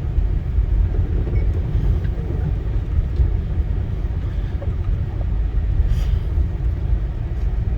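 Steady low rumble of a car driving on a snow- and ice-covered road, heard from inside the cabin: tyre and engine noise.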